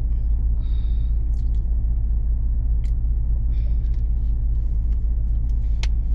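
Steady low road and engine rumble inside a moving car's cabin, with a few faint clicks and rustles.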